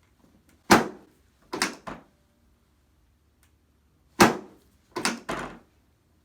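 Six sharp thumps from a chiropractic pelvic adjustment, in two groups of three: a single thump followed by two close together, a pause of about two seconds, then the same pattern again.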